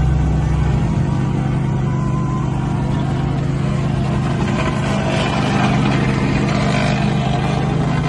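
Paving machinery running steadily, with a plate compactor vibrating over fresh asphalt; the deepest part of the engine drone drops away about a second in.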